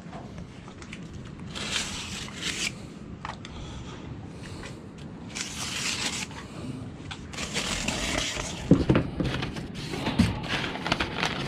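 Cardboard box being cut open: a utility knife slicing the packing tape in several scraping strokes, then cardboard flaps and crumpled packing paper rustling as the box is opened, with a couple of sharp knocks.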